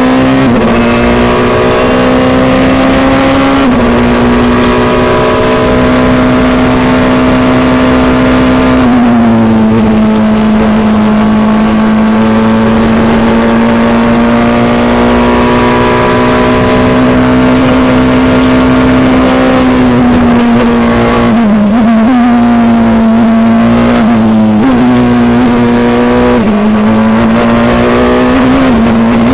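Formula Two single-seater's turbocharged four-cylinder engine at high, fairly steady revs, heard on board over wind rush. The pitch steps down about a third of the way through and dips and jumps several times near the end, through the corners.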